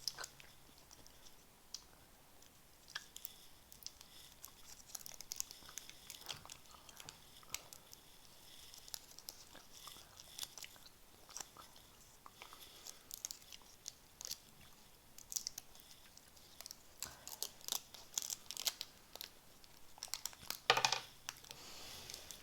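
Mouth chewing a chewy extreme sour apple sweet close up: irregular smacking and clicking, with a louder short sound near the end.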